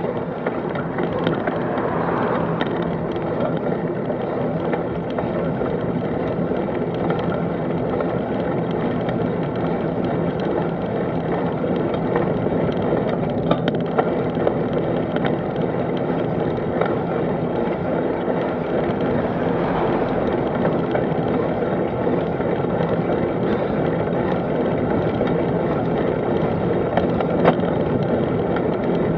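Steady hum of a vehicle travelling at an even speed along a road, with steady low tones under road and wind noise on the microphone.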